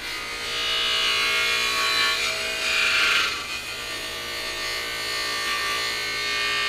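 Bench buffer running, its cloth wheel charged with green polishing compound rubbing against a stainless steel hubcap. A steady motor hum sits under the hiss of the wheel on the metal, which is loudest about three seconds in, eases off, then builds again as the hubcap is worked around the wheel.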